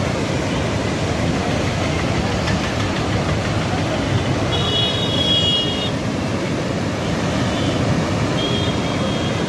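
Steady, loud rush of water pouring over an overflowing lake's weir. A brief high tone sounds twice, once in the middle and once near the end.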